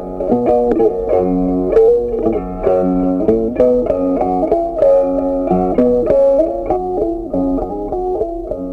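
Background instrumental music: a melody of plucked guitar notes.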